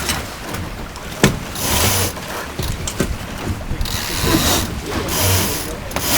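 Sounds aboard a Lightning sailboat under way: swells of wind and water hiss, with sharp clicks and rattles from lines being pulled through the ratchet blocks as the sails are trimmed.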